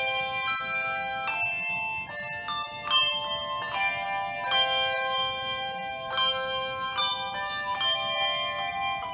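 Handbell choir playing a hymn medley on brass handbells and handchimes. Notes and chords are struck every half second to a second, each ringing on into the next.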